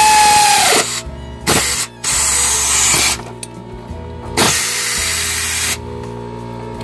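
Cordless power tool with a socket extension running bolts down tight on an engine: one run that winds down with a falling whine just under a second in, then three shorter runs, the last ending near the end.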